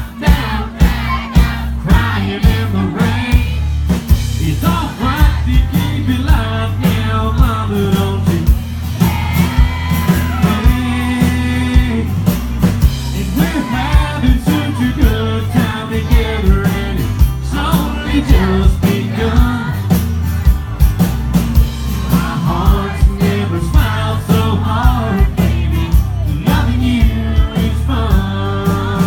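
Live country band playing with a steady drum beat, electric bass and acoustic guitar, while a male lead singer sings over it.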